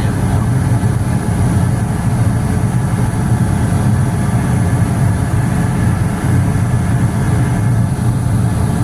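Goodman gas furnace running steadily in its first heating cycle of the season, a continuous low-pitched drone of the burners and blower.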